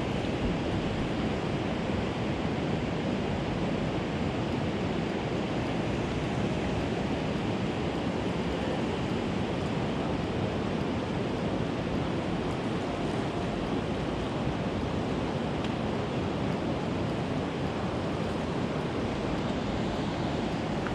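Steady, unbroken rush of river water flowing below a dam.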